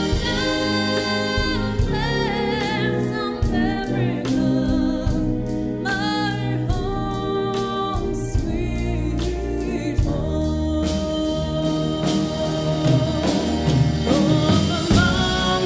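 A female vocalist singing with vibrato, accompanied by a military concert band of saxophones, clarinets and brass including tuba.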